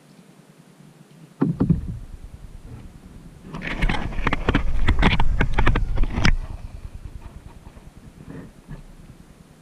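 Kayak paddle strokes splashing and dripping in calm water: a sudden splash about a second and a half in, then a loud run of rapid splashes for a few seconds over a low rumble, fading out near the end.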